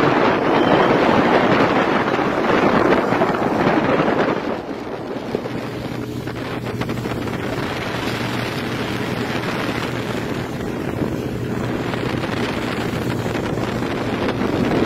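Wind buffeting the microphone on a moving motorboat, over the steady low hum of the boat's motor and the rush of water. The wind is strongest for the first four seconds or so, then eases a little.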